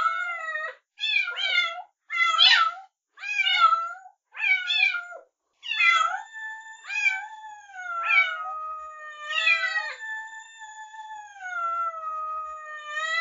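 A young kitten mewing: a string of short, high-pitched mews about one a second, then from about six seconds in longer, drawn-out cries.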